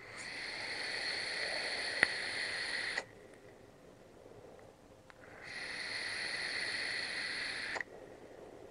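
Two long drags on a vape: air drawn hissing through the atomizer's airflow holes with a faint whistle, the first for about three seconds and the second for about two and a half, each starting and stopping sharply. There is a single click about two seconds in.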